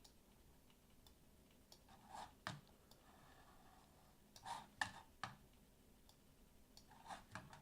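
Near silence with a handful of faint, short computer mouse clicks scattered through it, a few of them close together near the end.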